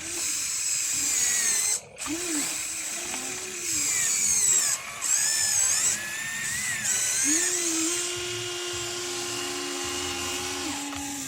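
Small electric gear motors of radio-controlled construction models whining, their pitch rising and falling as they speed up and slow down. The motors cut out briefly twice.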